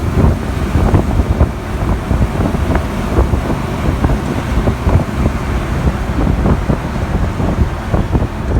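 Strong wind buffeting the microphone over the rumble of a moving vehicle in a rainstorm, with many scattered sharp taps.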